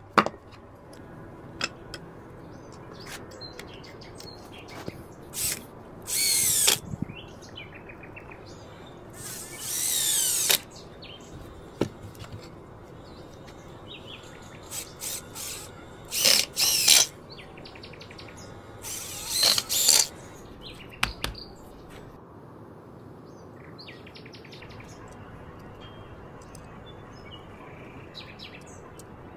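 AL-KO EKS 2000/35 electric chainsaw run in four short bursts of about a second each, with birds chirping in between.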